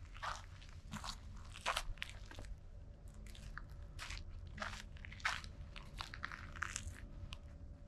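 Footsteps crunching on a dry forest trail, one step about every half second to second at an even walking pace.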